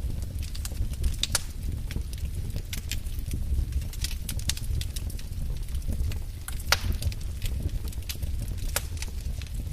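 Wood fire in a fireplace crackling, with irregular sharp pops and snaps over a steady low rumble of the flames. One louder pop comes about two-thirds of the way through.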